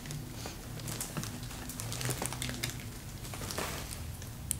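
Plastic wrapping on a packaged carry bag crinkling lightly as it is handled: a scatter of faint, sharp ticks and rustles over a low steady hum.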